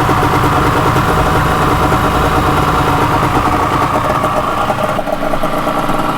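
Sea-Doo personal watercraft engine idling steadily, a fast even pulse at constant pitch.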